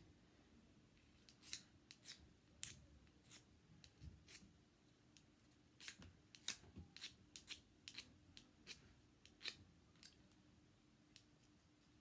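Flint-and-steel fire starter struck over and over: a dozen or more short, sharp scrapes of the metal striker along the rod, in irregular runs starting about a second in. The starter is not working, in the striker's own words.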